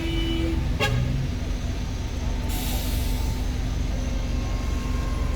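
Steady rumble of road traffic and vehicle engines. A horn that was already sounding stops within the first second, and a short hiss comes about halfway through.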